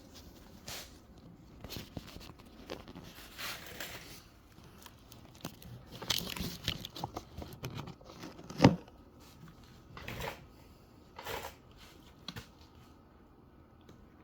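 Intermittent rustling and crinkling handling noises while cleaning solution is being applied to a car headlight lens, with scattered clicks and one sharp knock a little past the middle.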